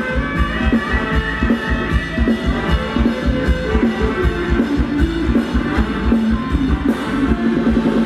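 Amplified band music for Thai ramwong dancing, with a drum kit keeping a steady, driving beat under brass and other instruments.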